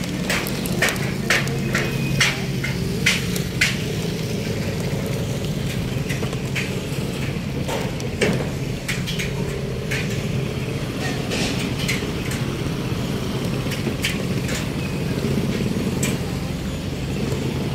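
An engine running steadily, with a run of sharp knocks about two a second in the first four seconds and one more about eight seconds in.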